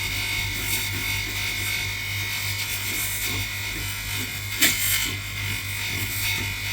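Bench polisher running with a steady motor hum while a shell fuze is held against the polishing wheel, making a continuous rubbing hiss. A brief sharp knock sounds about four and a half seconds in.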